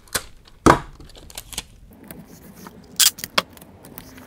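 Packing tape being worked off its roll and pressed over a hole in drywall: a few short sharp clicks and rips, with a knock about two-thirds of a second in and a quick burst of tearing noise about three seconds in.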